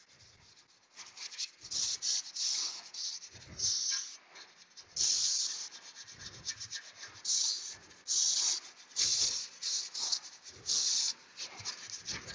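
Brush scrubbing a brake caliper bracket in a run of irregular back-and-forth strokes, each a short rasping hiss, cleaning off rust and brake dust before new pads go in.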